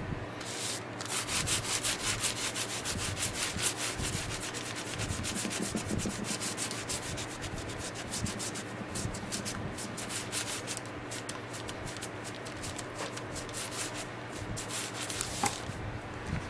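An applicator pad rubbed in quick back-and-forth strokes over a tooled leather belt, working dye into the leather; the scratchy rubbing stops about a second before the end.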